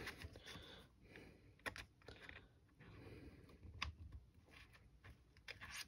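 Very quiet, with a few faint, scattered small clicks and light scrapes: an accessory rail being pressed and seated onto a spotting scope's fabric cover, with a punch pulling the cover into place.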